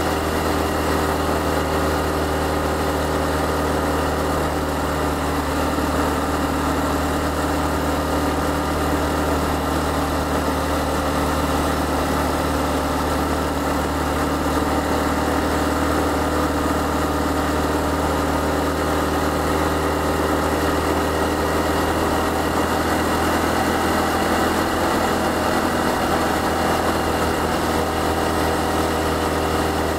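Honda Cross Cub 110's single-cylinder four-stroke engine running steadily at cruising speed, with a steady rush of wind, heard from the rider's seat.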